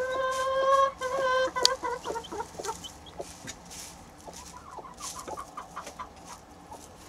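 Broody hen calling: a long drawn-out note held on one pitch for about a second, breaking into a run of shorter notes, then soft quick clucks.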